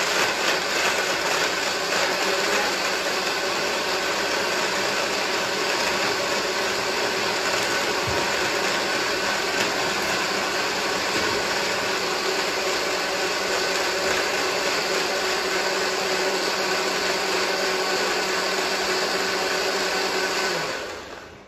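Countertop blender running steadily at high speed, grinding Brazil nuts, dates and milk into a smoothie, with the nuts breaking down. The motor winds down and stops near the end.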